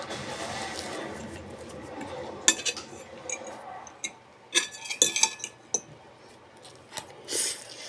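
Eating utensils clinking and scraping against a dish in a scattered run of sharp clicks, after a steady low background in the first couple of seconds.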